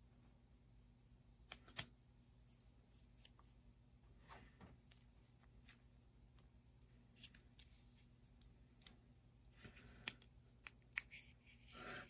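Faint clicks, taps and light scraping of plastic model-kit parts being handled and pressed together, with two sharper clicks about two seconds in.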